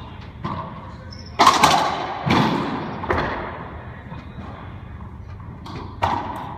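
Racquetball rally: a series of sharp hits as racquet and ball strike and the ball slams into the court walls and floor, each hit echoing around the enclosed court. The loudest hits come about one and a half to two and a half seconds in, with another about six seconds in.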